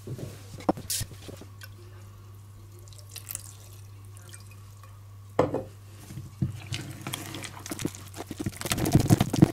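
A little water poured from a glass jar into firm rye sourdough starter, then a wooden spoon stirring it into the thick mix in a bowl, with rapid wet clicks and scrapes that grow louder toward the end. Water is being added because the refreshed starter is too stiff.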